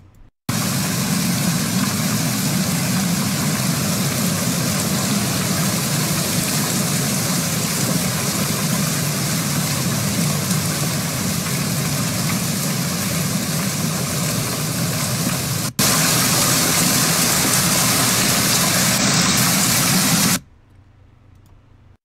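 Hailstorm: hail and heavy rain pelting down in a dense, steady hiss. A little before 16 seconds it cuts to an even louder rush of noise, then drops away to a faint hiss about 20 seconds in.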